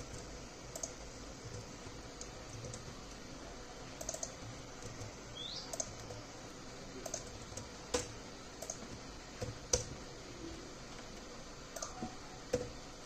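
Computer keyboard typing in scattered, irregular keystrokes, a few louder than the rest.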